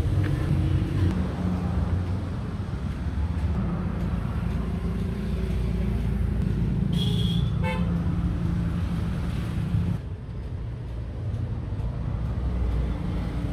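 Street traffic noise: a steady low engine hum, with a short vehicle horn toot about seven seconds in. The background drops in level abruptly about ten seconds in.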